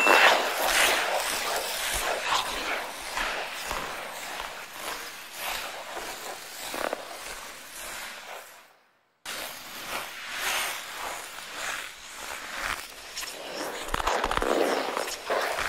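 Ice skate blades scraping and gliding on ice, a rough irregular rasp. It drops out for about half a second around nine seconds in, then resumes.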